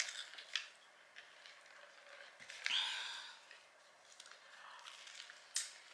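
Quiet close-up mouth sounds of eating: a sip from a paper drink cup, then a bite of a toasted sourdough burger, with a few short clicks and one louder sharp sound about three seconds in.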